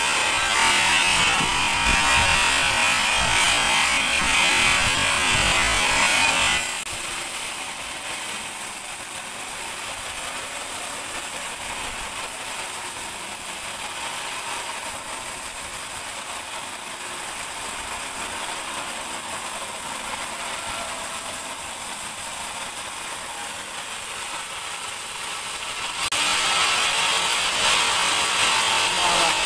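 Sawmill band saw running through a teak log, a steady gritty mechanical noise. It is loud for the first six seconds, drops suddenly to a quieter run, and comes back loud near the end.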